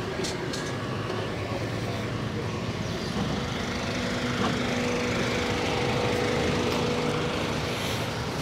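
A motor vehicle's engine running steadily, with a steady hum that slowly grows louder through the middle.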